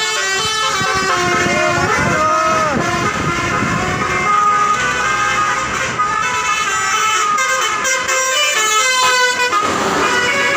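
Bus 'telolet' multi-tone horn playing a tune, its notes stepping to new pitches several times a second, with a swooping rise-and-fall tone about two seconds in.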